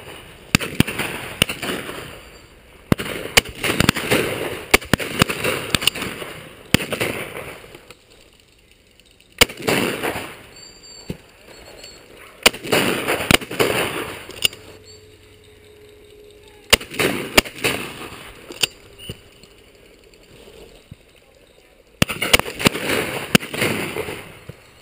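Shotgun shots from the guns along a pheasant drive, sharp cracks coming in clusters, each followed by a trailing echo, with short lulls between the volleys.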